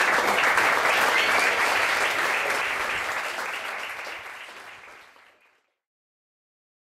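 Theatre audience applauding a curtain call: dense, steady clapping that fades out from about three seconds in and is gone by about five and a half seconds, followed by silence.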